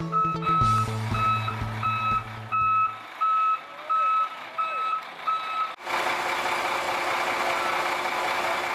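Construction machine's reversing alarm beeping at a steady single pitch, about two beeps a second. About six seconds in it cuts off abruptly and a steady rushing noise takes over.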